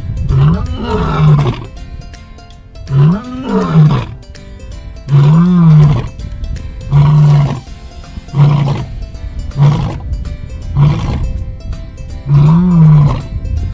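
A big cat roaring in a series of about eight short, deep calls, each rising and falling in pitch, roughly every second and a half.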